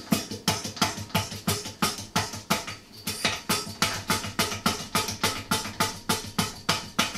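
Background music with a steady percussive beat, about two hits a second, over a sustained bass line.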